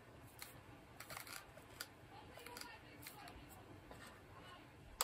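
Faint clicks and handling sounds as the buttons of a plug-in power monitor are pressed, then a sharper click at the very end as the mini PC's power button is pressed to switch it on.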